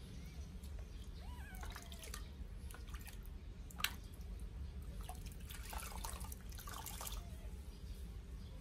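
Water splashing and dripping in a washbasin as a newborn sphynx kitten is washed with a cloth, with a few faint squeaky mews from the kitten in the first two seconds. One sharp splash about four seconds in is the loudest, then a quick run of splashes and drips.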